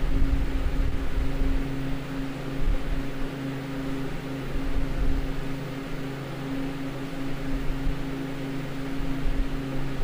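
Walk-in freezer's ceiling-mounted Bohn evaporator unit running: its fans blow a steady rush of air over a constant hum of a few low tones, with an uneven low rumble underneath.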